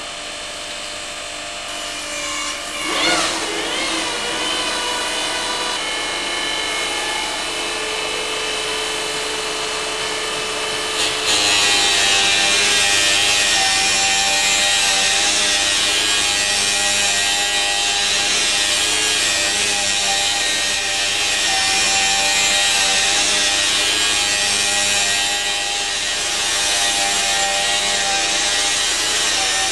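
Hand-held hydraulic stone profiling machine (Oma System Auctor CP99) with a diamond profile wheel: at first a steady high whine, with a quick swoop in pitch about three seconds in. From about eleven seconds on it becomes a loud, hissing grind as the spinning wheel cuts a profile along the edge of a granite slab under water spray.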